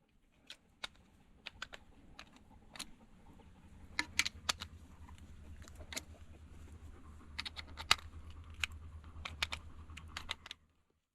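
Irregular light clicks and taps, a few sharper than the rest, over a low steady hum; it all cuts off suddenly near the end.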